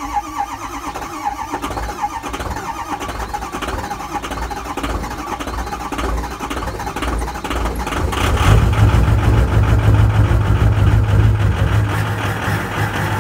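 Ford 6.0 L Power Stroke V8 turbodiesel just after a cold start, running with a rough, ticking diesel clatter. About eight seconds in it is revved: the sound deepens into a strong drone and grows louder, then eases back a little near the end.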